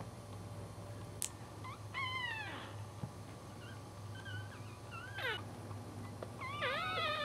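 Newborn Cairn Terrier puppies, about two hours old, squeaking and whimpering: short high calls that fall in pitch, a sharp one about five seconds in, and longer drawn-out calls near the end, over a low steady hum.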